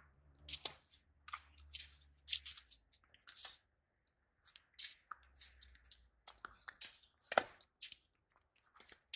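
Tennis rally: a string of sharp pops from rackets striking the ball and the ball bouncing on the hard court, the loudest about seven seconds in, over a faint low hum.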